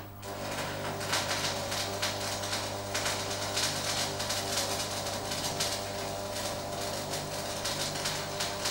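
Manual metal arc (stick) welding arc crackling continuously as the electrode runs a weld on a steel angle-iron joint, the arc struck right at the start.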